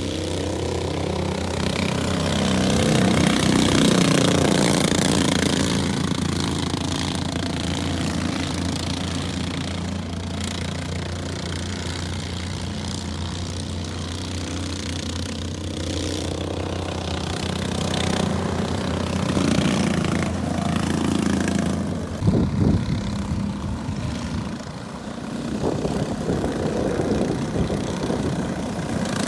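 Several small junior sprint car engines running as the cars lap a dirt oval. The sound swells and falls in pitch as cars pass close, about four seconds in and again around twenty seconds, over a steady low drone.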